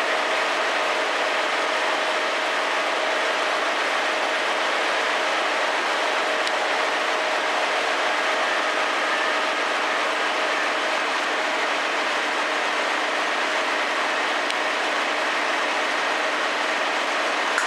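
MAN Roland Cromoman 70 web offset printing press running at a steady speed: an even, unbroken mechanical din with a few faint steady tones in it.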